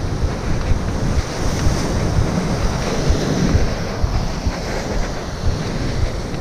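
Gusty wind buffeting the microphone over the steady wash of waves breaking on rocks.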